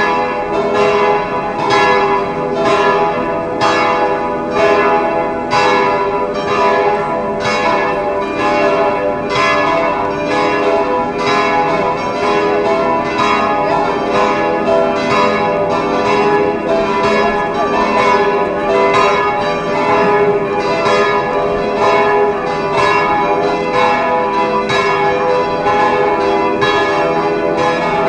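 Orthodox cathedral church bells pealing without a break, several bells struck in quick overlapping strokes about twice a second, the festive ringing that greets a patriarch's arrival.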